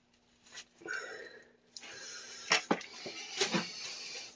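Handling noise of a brass ball valve being fitted onto a pipe: faint rubbing, then rustling with two pairs of sharp metallic clicks in the second half.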